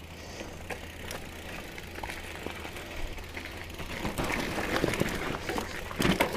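2017 Trek Remedy 7 mountain bike rolling over a dirt trail: tyre noise and the bike's parts rattling and clicking over the ground, getting busier and louder about four seconds in, with a couple of sharp knocks near the end.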